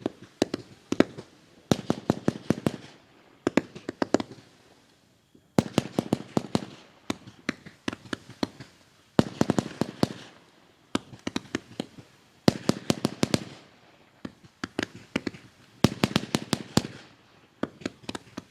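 Pyroworx Quiet Riot 2 firework cake firing in repeated volleys: each volley is a second or so of rapid sharp bangs, with a short pause before the next, recurring about every one and a half to two seconds.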